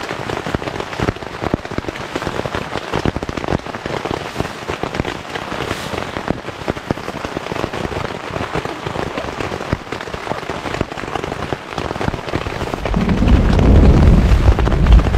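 Heavy rain pattering steadily on the tent fabric. About thirteen seconds in, a loud low rumble of thunder swells up over it.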